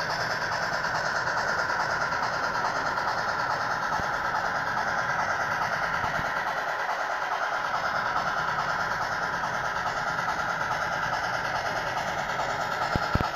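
HOn3 model train, a Blackstone C-19 steam locomotive pulling freight cars and a combine, running steadily along the layout: an even hiss with no clear beat. Two sharp clicks near the end.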